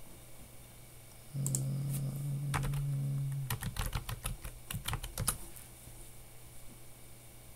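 Typing on a computer keyboard: short runs of key clicks. A low, steady hum lasts about two seconds under the first keystrokes.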